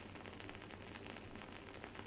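Wooden candle wick burning with a faint, dense crackle: many tiny pops in quick succession over a steady soft hiss.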